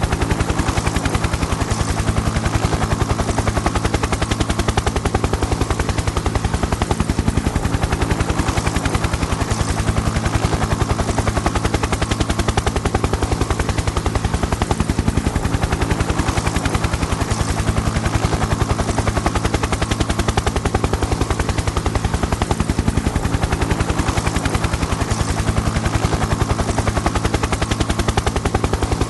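Helicopter rotor blades chopping in a rapid, even rhythm over a steady low engine drone, holding at a constant level throughout.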